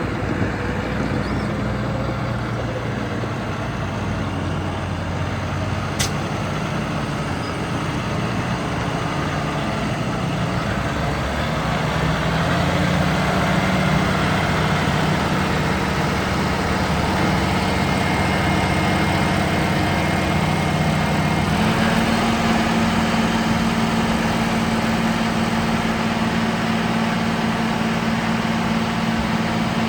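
Heavy farm-vehicle engine running steadily. Its pitch steps up about twelve seconds in and again just past twenty seconds, as the engine speeds up. A single sharp click about six seconds in.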